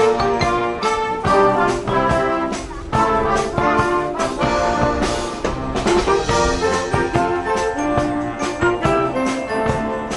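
High-school marching band playing a brass tune, trumpets and trombones over a regular beat of drum hits.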